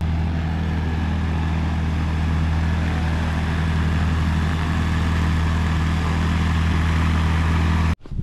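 Kitfox light aircraft's engine and propeller running at a steady, even pitch. The sound cuts off suddenly just before the end.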